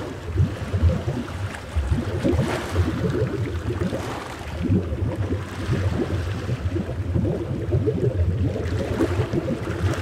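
Ocean waves heard underwater: a muffled, mostly low wash of moving water, thick with small flickering sounds, that swells every few seconds as a wave surges.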